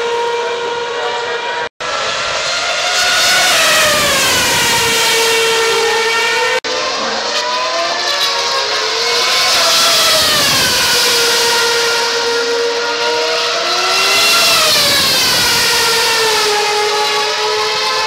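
2013 Formula 1 cars' 2.4-litre V8 engines screaming at high revs as they pass one after another on the straight, each pass-by dropping in pitch as it goes by, over a steady high tone. The sound cuts out briefly twice, about two seconds and seven seconds in.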